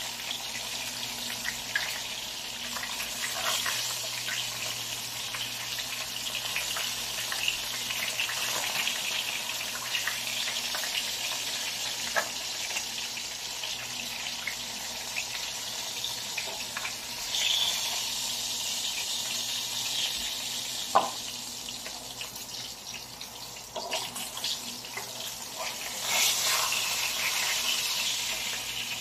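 Tilapia frying in hot cooking oil in a pan, a steady sizzle throughout, with a few sharp clicks of metal tongs handling the fish.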